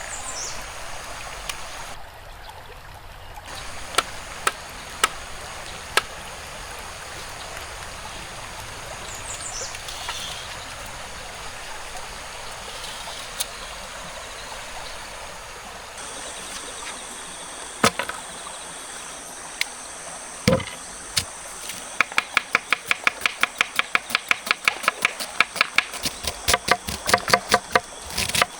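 Steady rush of a forest stream, with scattered sharp clicks. In the last several seconds a rapid run of clicks comes at about four a second.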